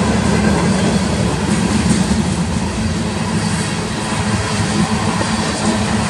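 Covered hopper cars of a freight train rolling past, a steady rumble and rattle of steel wheels on the rails.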